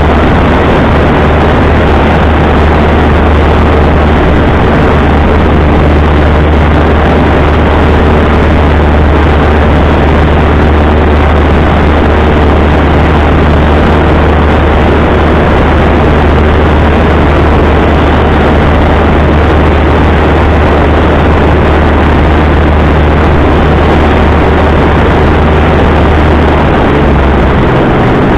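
Light single-engine airplane's piston engine and propeller droning steadily in flight, heard from the cockpit. The low hum eases slightly near the end.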